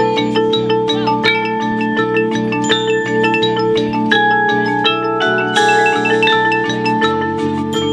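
Marching band music led by the front ensemble's mallet percussion: marimba, xylophone and glockenspiel playing a quick, even run of struck notes over sustained held chords. A bright shimmering sweep comes in about five and a half seconds in.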